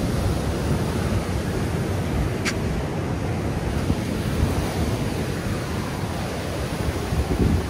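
Wild Atlantic surf breaking and washing up a beach, a dense steady rush of water with a louder surge near the end, and wind rumbling on the microphone.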